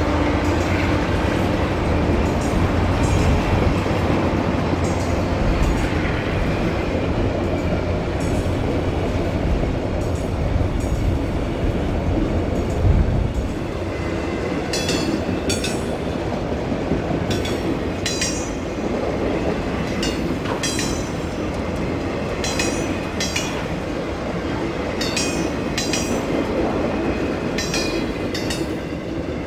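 Freight train rolling by: the low rumble of the mid-train diesel locomotives fades over the first dozen seconds. Then autorack cars pass with repeated sharp clacks from the wheels and brief high squeals.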